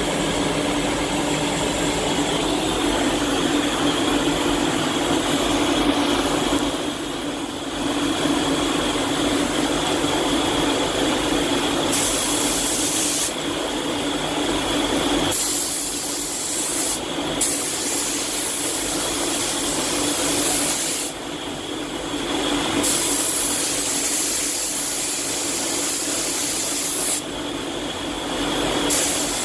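Iwata Hakone air spray gun hissing as it lays down clear coat, in blocks of a few seconds starting about twelve seconds in, with the trigger released briefly between passes. Under it runs a steady background drone with a constant hum.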